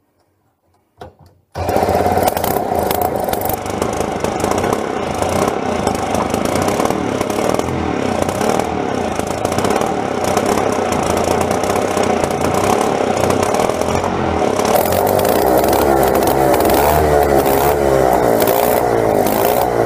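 Vintage Tecumseh two-stroke engine running, starting abruptly about a second and a half in, with the revs rising and falling near the end. It runs, though not perfectly: the carburettor still needs a proper clean.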